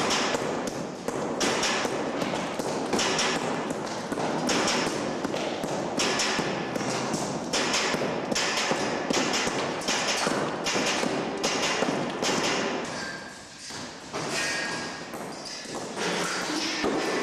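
Hammer blows knocking old plaster off a brick wall, a long run of sharp repeated impacts about one to two a second, with rubble falling between them.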